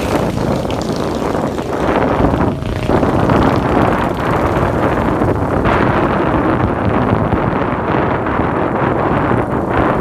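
Steady, loud wind rush on the microphone of a moving vehicle, mixed with its running noise.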